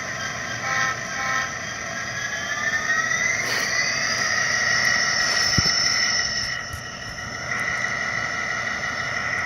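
Walthers EMD SD60M model locomotive's sound decoder playing a diesel startup through its small onboard speaker: the engine sound rises in pitch over about two seconds, then settles into a steady run. A single sharp click about halfway through.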